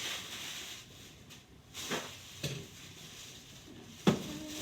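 Shopping bags rustling as purchases are unpacked, with a few knocks of items being handled and set down, the sharpest about four seconds in.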